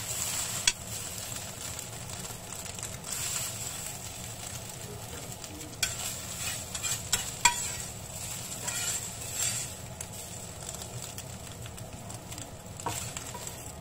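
Beaten egg frying in a little oil in a cast iron skillet, sizzling steadily. A metal spatula scrapes the pan and knocks against it with a few sharp clicks as the omelette pieces are turned and lifted out.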